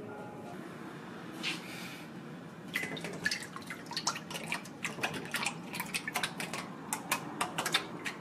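Liquid poured from a plastic jug into a stainless steel bowl, splashing and dripping irregularly. The splashing starts about two and a half seconds in and keeps on.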